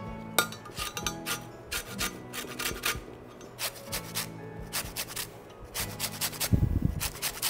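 A lemon being zested on a handheld rasp grater: quick rasping strokes of the rind across the metal blade, about three a second with short pauses. A low thud comes near the end.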